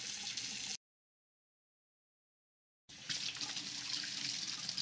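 Kitchen tap water running and splashing, first onto a wooden cutting board, then over hands rinsed under the faucet in a steel sink. Under a second in, the sound cuts to dead silence for about two seconds, then the running water resumes.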